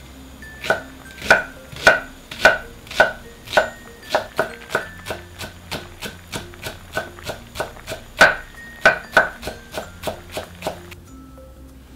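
A white ceramic knife slicing onion and green onion on a wooden cutting board: a steady run of sharp knocks of the blade on the wood, about two a second, stopping about a second before the end.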